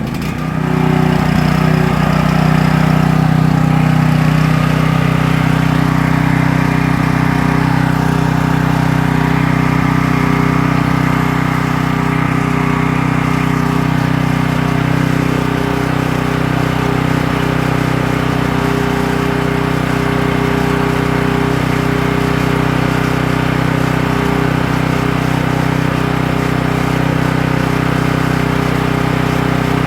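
Ryobi 4500-watt portable generator's engine running at a steady speed with its combined petcock and choke lever set to run after a cold start. It dips for a moment right at the start, then settles into an even, unchanging drone.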